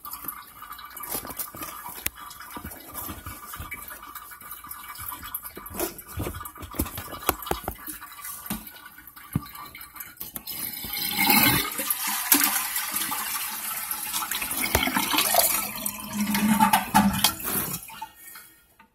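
A rubber toilet flapper being worked off the flush valve inside a toilet tank: small knocks and scrapes of hands and plastic parts, then, about ten seconds in, a louder stretch of water splashing and gurgling in the tank that stops shortly before the end.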